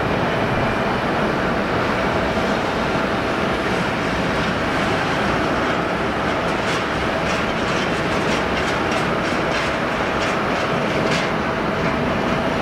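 Boeing 787-9 Dreamliner's Rolls-Royce Trent 1000 turbofans at climb power just after takeoff: a steady, broad jet noise with a faint held tone, and scattered crackles through the second half.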